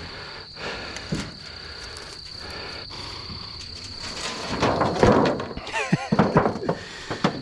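Steady high insect trill, with louder rustling and a few knocks and scrapes in the second half as a thin corrugated metal sheet is let down onto the grass and a snake is grabbed from the straw.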